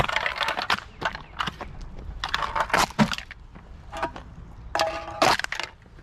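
Empty aluminium drink cans being handled and gathered into a pile, crinkling and clattering in a series of short bursts with a few sharp clinks.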